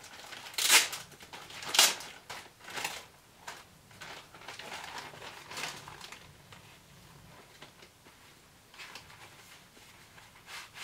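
Packaging being handled and opened: a run of crinkling, rustling bursts, the two loudest about one and two seconds in, then smaller, fainter handling noises.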